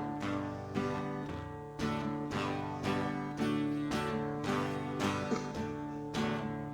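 Acoustic guitar strummed in a steady rhythm, an instrumental break between sung verses.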